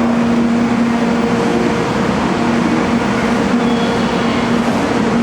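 Train running at speed, heard from inside the passenger car: a steady rumble of wheels and track with a constant low hum.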